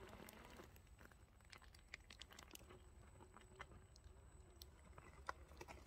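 Faint scattered clicks and crunches of an Axial Wraith RC rock crawler's tyres working over a rock slab, over a faint low hum.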